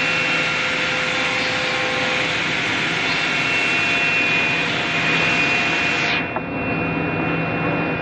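Woodmaster CNC router machining wood: a steady whirring noise with a high whine over it. About six seconds in, the upper hiss drops away and the sound turns duller.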